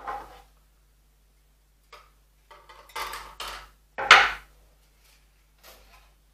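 Handling noises from a coil of bonsai wire and tools knocking and rubbing on a table. They come in a few short bursts, the loudest about four seconds in.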